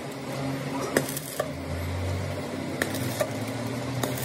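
Stick arc welding on a broken crankshaft: a steady crackling sizzle with a few sharp clicks scattered through it.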